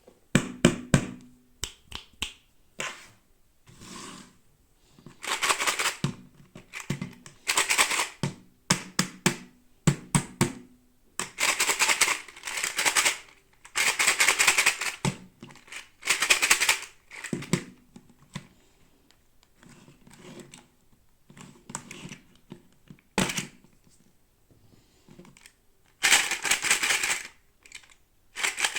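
Toy packaging being handled and opened by hand: irregular sharp clicks and taps alternating with rustling stretches lasting a second or two.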